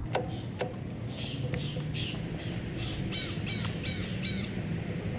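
Birds calling: a run of short repeated calls, coming about three or four a second in the second half, over a steady low hum.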